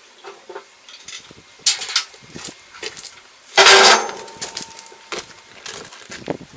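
Wooden planks being shifted on a small flatbed trailer, knocking and clattering against it. A few separate knocks come first, then a loud clatter of about half a second midway, then more knocks.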